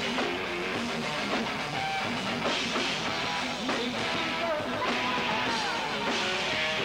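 A rock band playing live, with guitar and drums.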